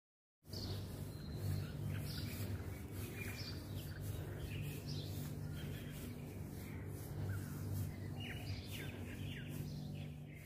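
Outdoor ambience that cuts in abruptly about half a second in: birds chirping over a steady low hum.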